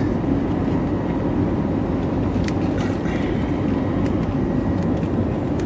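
Steady engine and airflow noise inside an airliner cabin during takeoff and climb, a low even rumble.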